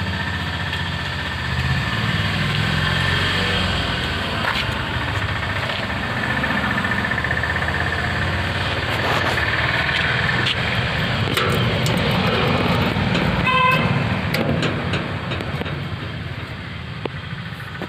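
An engine running steadily with a low rumble, with a brief horn toot about thirteen and a half seconds in and a few light clicks.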